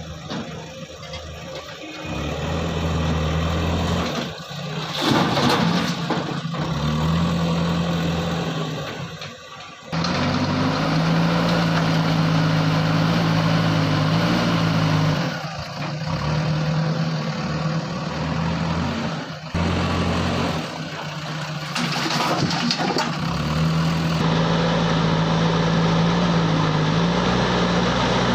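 Diesel engine of a JCB backhoe loader working under changing load, its drone rising and falling as it revs up and settles back. Twice, about five seconds in and again a little past the middle, a loud noisy rush breaks over the engine sound.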